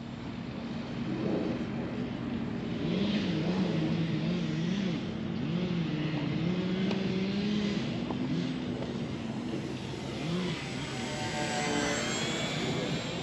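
Battery-powered electric motor and propeller of a small foamboard RC bush plane buzzing in flight, its pitch wavering up and down. Near the end it comes close overhead, and a higher whine rises and then falls as it passes.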